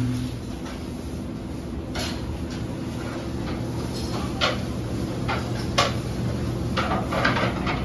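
Restaurant kitchen clatter: scattered knocks and clinks of utensils, dishes and cupboards over a steady low hum of kitchen equipment.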